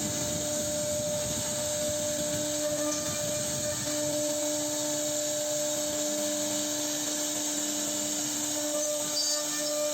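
CNC router spindle running while it carves wood: a steady tone over a hiss of cutting.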